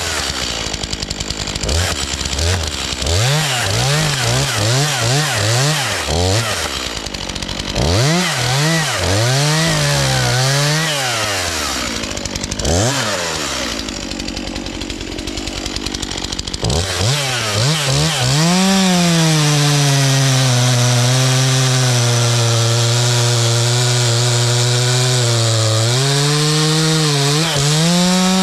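Stihl MS 251 45cc two-stroke chainsaw, its engine revved up and down again and again in quick bursts, then held running steadily at high revs for about the last ten seconds, dipping briefly near the end.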